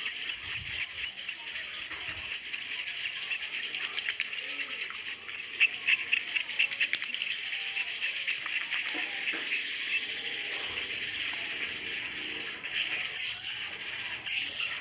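Edible-nest swiftlets calling in a swiftlet house, the roosting call (suara inap): a fast, even string of high chirps, about four or five a second, over a dense twittering chatter. The chirps thin out after about ten seconds.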